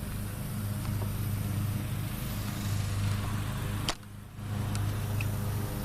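An engine running steadily, a low hum under a rushing noise, which drops away briefly about four seconds in.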